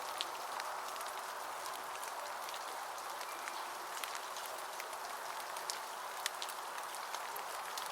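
Falling snow sound effect: a steady soft hiss with many faint ticks scattered through it, like fine flakes or ice grains landing.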